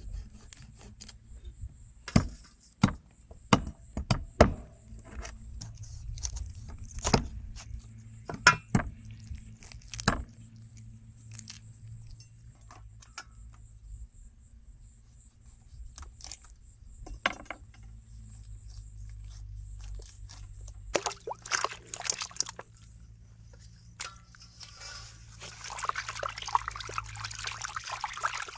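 Cleavers knocking on wooden chopping boards as quail are cut up: scattered sharp knocks, most of them in the first ten seconds. Near the end, water splashing as hands wash the cut quail in a metal basin.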